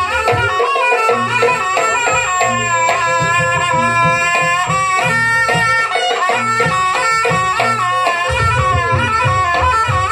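Jaranan accompaniment music: a reedy melody line winding from note to note over steady hand-drum (kendang) strokes.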